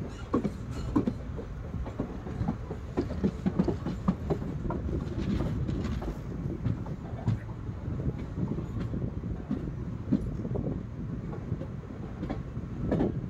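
Train running on the rails: a steady low rumble with frequent irregular clicks and knocks of the wheels on the track.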